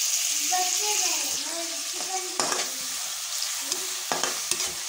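Chopped onion, capsicum and tomato sizzling in oil and sauce in a non-stick wok while a metal spatula stirs them, with a couple of sharp scrapes of the spatula against the pan, one about halfway through and one near the end.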